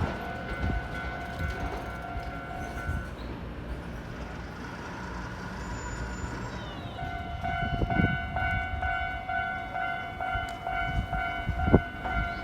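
Japanese railway level-crossing warning bell ringing its electronic "kan-kan" alarm. It stops about three seconds in, then starts again a few seconds later and rings on in a steady pulsing rhythm, with train rumble and a couple of thumps underneath.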